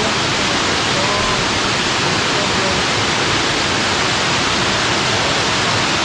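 Steady, loud rushing roar of a tall mountain waterfall crashing down its cascade, with faint voices under it.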